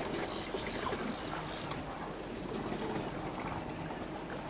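A boat's steady low engine rumble with water sloshing and trickling along the hull, and faint voices in the background.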